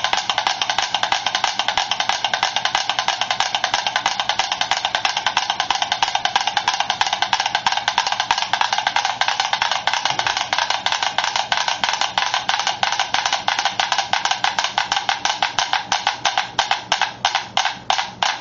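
Five mechanical metronomes ticking out of phase in a dense, uneven clatter. Once their board is set on two soda cans they become mechanically coupled, and near the end the clatter draws together into distinct, evenly spaced ticks as they synchronize.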